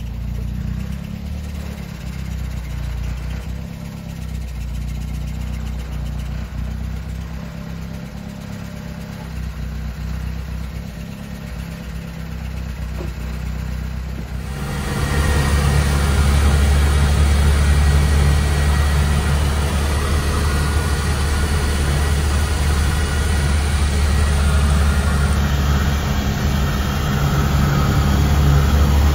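Motor vehicle engine running with a steady low drone. About halfway through, the sound suddenly becomes markedly louder and fuller.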